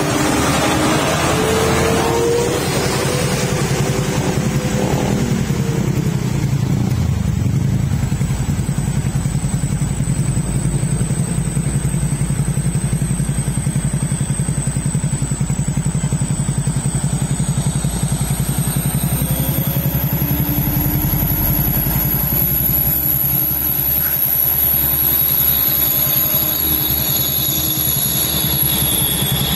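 Diesel truck engines running at low speed as heavily loaded trucks creep past at close range. The engine pitch rises slightly in the first few seconds.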